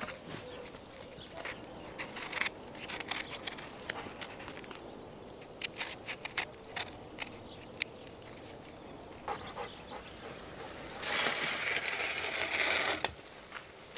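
Scattered light clicks and taps of lettuce being laid on a metal platter and a lemon being cut with a knife. About eleven seconds in, a loud rushing scrape of about two seconds comes as a steel baking tray is drawn out of a wood-fired oven, then cuts off.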